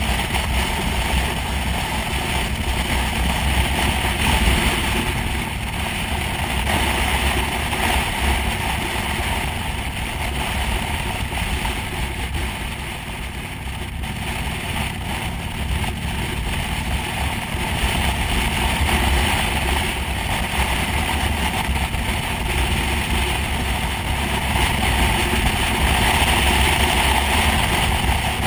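Motorcycle riding at steady road speed: engine running under a constant rush of wind on the windscreen and microphone, dipping slightly in loudness about halfway through.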